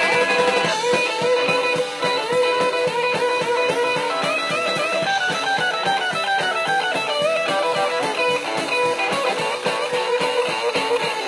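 Live rock band playing an instrumental break: a melodic lead line with long held notes over drums, bass and guitar, with no singing.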